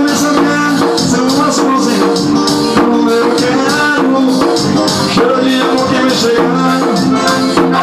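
Amplified live forró music: an electronic keyboard playing a melody over sustained chords, with a steady shaker-and-drum beat.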